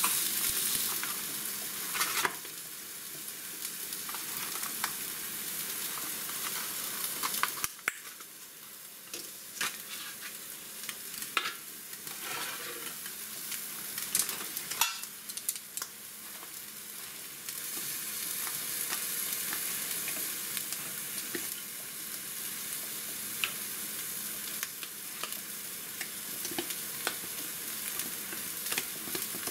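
Steady hiss with scattered light clicks and taps as wooden chopsticks, a plastic tray of shirasu and an aluminium mess tin are handled.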